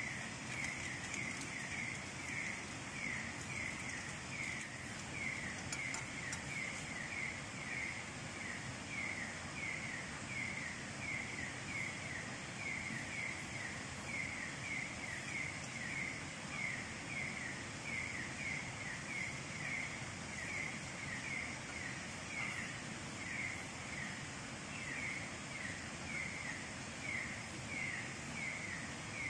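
Night-time tropical jungle ambience: a steady hiss with one creature's short falling chirp repeated about twice a second.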